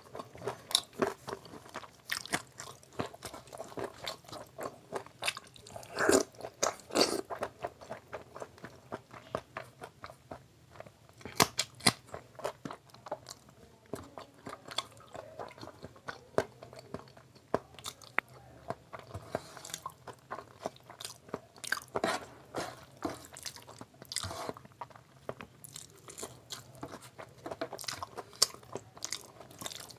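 Close-miked chewing and mouth sounds of a man eating rice and curry with his fingers: an irregular run of smacks and clicks, several a second.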